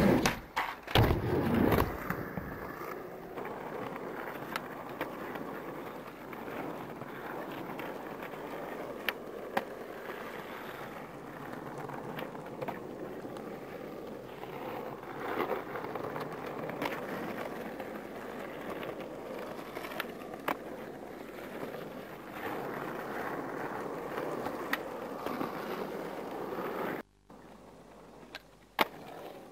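Skateboard wheels rolling over concrete and asphalt in a steady rumble, with sharp clacks of the board being popped and landing; the loudest knocks come in the first couple of seconds. The rolling stops suddenly near the end, followed by one more clack.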